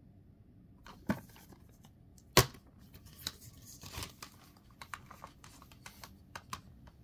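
Plastic 4K Ultra HD disc case being opened and handled: a run of sharp clicks and snaps, the loudest about two and a half seconds in, with lighter ticks after.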